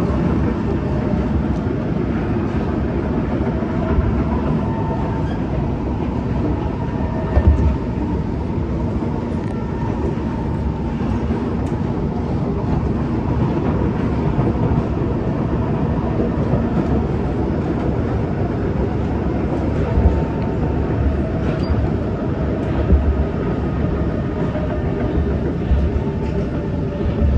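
Inside a C151 metro train car running between stations: a steady rumble of wheels on rail with a faint steady hum and a few louder knocks along the way.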